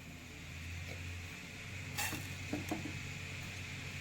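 A few light taps of a utensil against a cooking pan, about two seconds in and twice more shortly after, over a faint steady hum.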